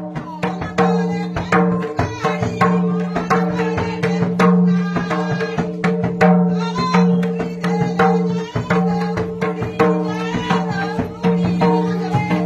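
Folk music: a two-headed hand drum beaten in a quick, uneven rhythm, with singing over steady held notes.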